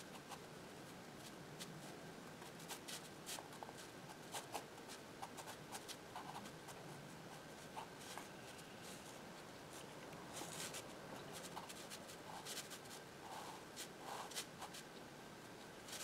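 Fineliner pen scratching across sketchbook paper in short, irregular strokes as lines are drawn.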